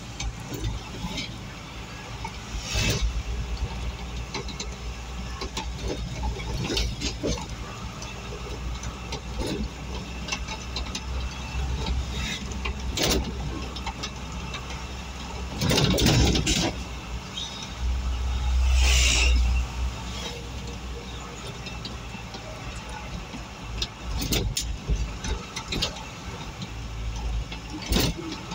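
Engine and road noise from inside the cabin of a small vehicle driving along a rough concrete road, with frequent short rattles and knocks. Two louder surges come a little past halfway.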